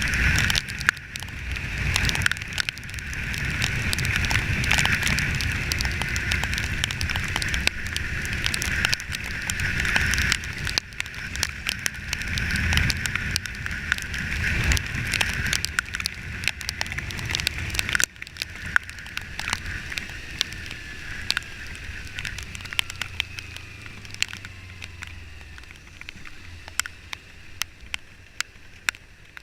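Wind and road noise from riding a motorcycle, with a low rumble and many sharp clicks and taps. The noise drops suddenly about two-thirds of the way in and grows quieter toward the end.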